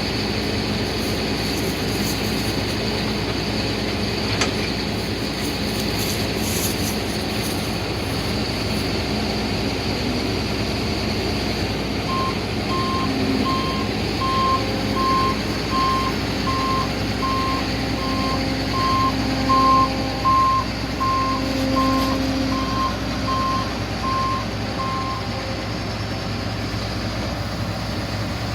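John Deere 9770 combine's diesel engine running steadily. Partway through, a backup alarm beeps at an even pace for about thirteen seconds, then stops.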